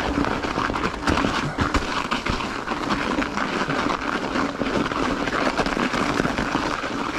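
Mountain bike's 2.5-inch tyres rolling over a thin crust of ice on snow, a steady crunching with many small crackles and knocks from the bike bouncing over the trail.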